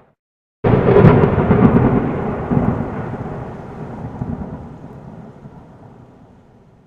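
A thunderclap: a sudden crack about half a second in, then rumbling that fades away steadily over about six seconds.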